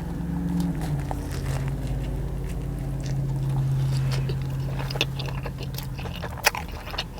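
Biting into and chewing a fried chicken tender wrap in a soft tortilla, with short crunchy clicks from the breading. A steady low hum runs underneath and stops about six seconds in.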